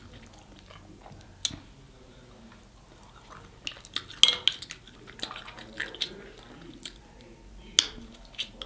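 Close-up eating of snow crab: wet chewing and smacking, broken by a few sharp clicks and cracks of shell, the loudest about a second and a half in, about four seconds in and near the end.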